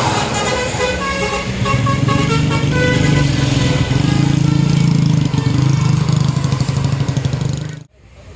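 Tour bus's telolet basuri musical horn playing a tune of short stepped notes, with a steady low drone from the bus underneath. The sound cuts off suddenly near the end.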